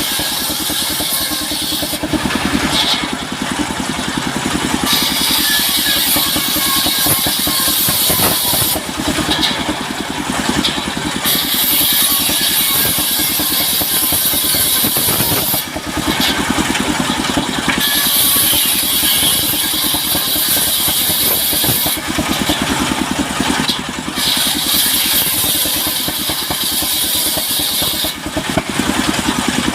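Engine-driven circular sawmill running steadily. Its blade saws through timber in stretches of a few seconds each, a loud hiss that breaks off and starts again several times.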